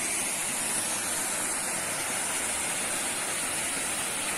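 Small forest waterfall and stream: a steady, even rush of falling and flowing water.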